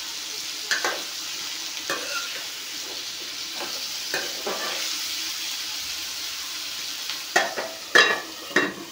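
Diced potatoes frying in an aluminium kadhai with a steady sizzle, and a metal spoon knocking against the pan now and then as they are stirred. Near the end come a few louder metal clanks as the aluminium lid goes onto the pan.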